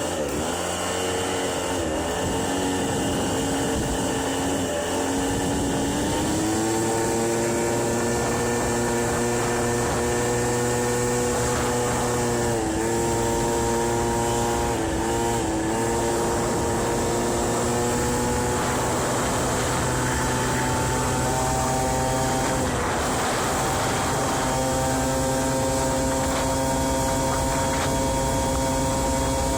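Aprilia Ditech scooter's 50 cc two-stroke Morini engine running on newly replaced crankshaft bearings while being ridden. Its pitch climbs about six seconds in and then holds steady, with two brief dips in pitch about thirteen and fifteen seconds in.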